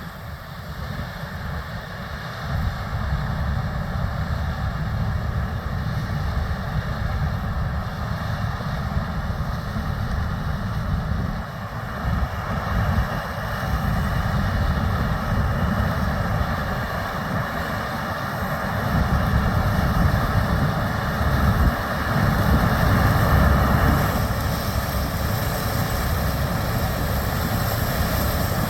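Gleaner S97 combine harvesting corn, with farm tractor engine noise: a steady heavy machinery rumble that grows louder twice, around the middle and again later.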